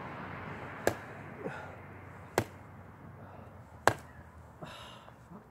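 Three sharp knocks about a second and a half apart: punches into a tree trunk with G10 composite knuckle dusters.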